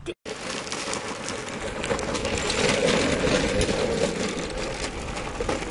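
Go-kart rolling along at speed, a steady rumble with rattling clicks from its wheels and frame, loudest in the middle.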